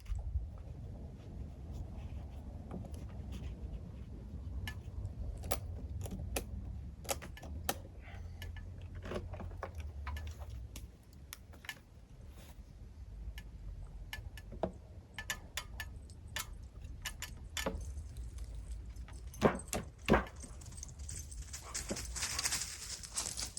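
Irregular small metallic clinks and clicks from strap and hoisting hardware being handled, over a steady low wind rumble. Two louder clicks come about three-quarters of the way through, and a rustling hiss rises near the end.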